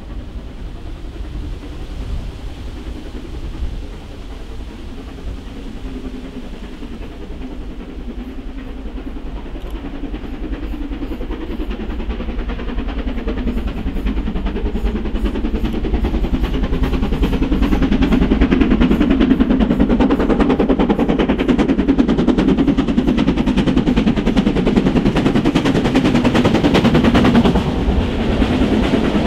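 Mainline steam locomotive approaching at speed with its train, its rapid exhaust beats growing steadily louder until it is close by and loud for the last ten seconds or so.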